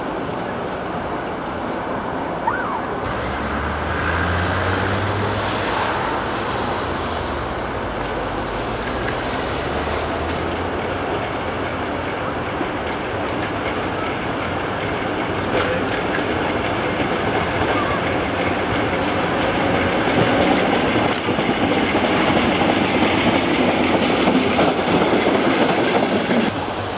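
Class 73 electro-diesel locomotive approaching over pointwork and passing close by. A low rumble sounds for several seconds after the start, with wheel clicks over the rail joints and points. The wheel and rail noise builds to its loudest as the locomotive passes, near the end.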